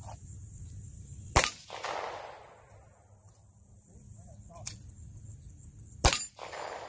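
Two pistol shots about five seconds apart, each followed by a short rolling echo, with faint clicks of handling between them. The gap fits a drill of one shot, a magazine change, then a second shot.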